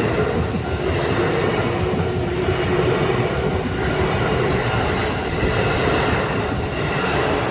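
JR Yokohama Line electric train running past at a level crossing: a loud, steady rumble of wheels on rail with faint steady tones above it.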